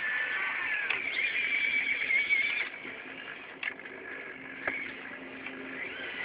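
RC model excavator's motors whining as the arm and bucket move, a high wavering whine that drops away after about two and a half seconds, leaving a lower steady hum with a few sharp clicks and short rising and falling whines.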